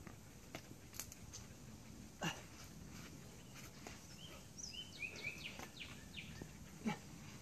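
Faint outdoor ambience with a small bird giving a quick run of short chirps in the middle. There are a few short sharp sounds, the strongest about two seconds in and near the end.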